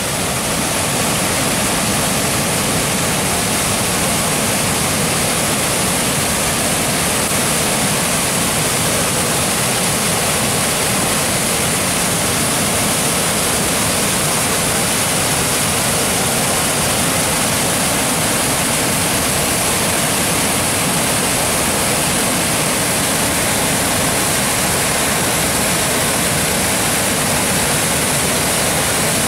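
Swollen brown floodwater pouring over a mill dam's spillway and churning in the whitewater at its foot: a steady, unbroken rush of water at flood flow.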